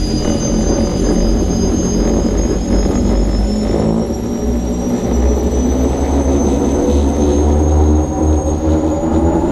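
Unlimited hydroplane's Lycoming T55 turbine engine running at speed, heard from inside the cockpit. A steady high turbine whine creeps slowly up in pitch over a heavy low rumble.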